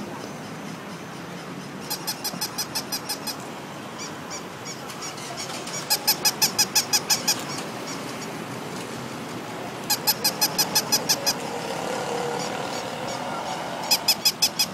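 Walking toy puppy giving short runs of rapid, high-pitched squeaky yips, about six a second for a second or so, repeating roughly every four seconds.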